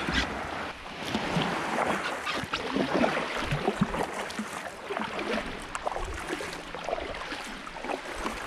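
Water lapping and splashing against a kayak's hull, with irregular small knocks and clicks.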